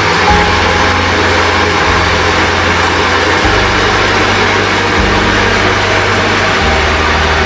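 Background music with a dense, steady mix and a bass line that changes note about every one and a half seconds.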